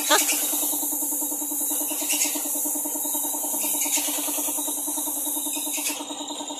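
Compressed-air paint spray gun hissing steadily as it sprays red paint onto a car body, over the pulsing hum of an air compressor running. The hiss drops away near the end as the trigger is eased.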